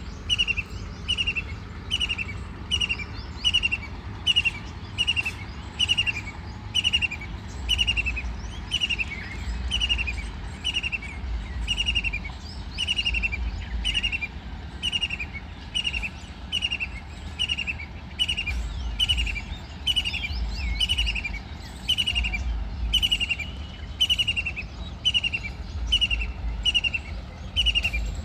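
White-throated kingfisher calling: a short, falling note repeated evenly, about three calls every two seconds, over a low rumble.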